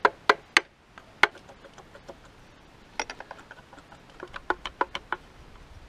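Hammer striking a steel punch held against the front of a Toyota 20R engine: four sharp metallic blows within the first second and a half. After a pause, a quicker run of lighter metallic clicks and taps follows as tools work on the engine.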